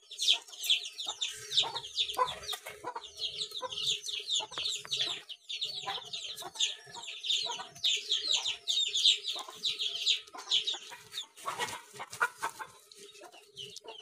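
Chickens clucking, with a busy stream of rapid, high chirps.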